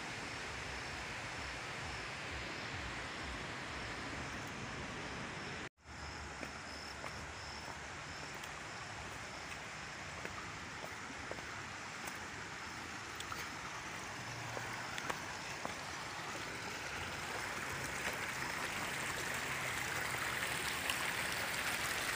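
Shallow stream of muddy water rushing over and around rocks: a steady wash of water noise that drops out for an instant about six seconds in and grows gradually louder toward the end.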